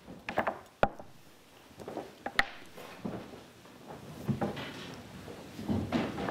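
Chairs being pulled out and knocked about, with shuffling, as a group of people sits down at a table. Two sharp knocks stand out, about a second in and again about two and a half seconds in.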